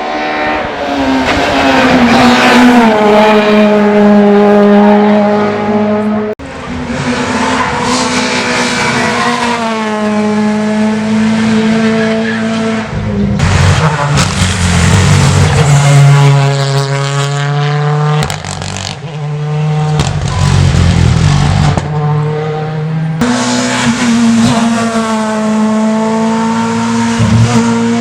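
Rally cars driven flat out past the spectator, their engines at high revs and the pitch rising and falling with gear changes and throttle. Several separate passes follow one another with abrupt cuts between them.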